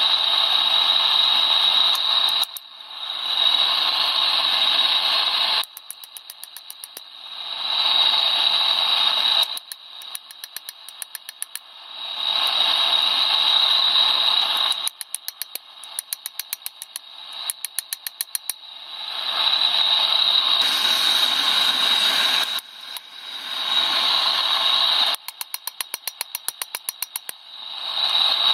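Rapid light hammer blows on hot spring steel against an anvil, about six a second, while a spoon is forged. They alternate with stretches of a loud steady rushing hiss that start and stop several times.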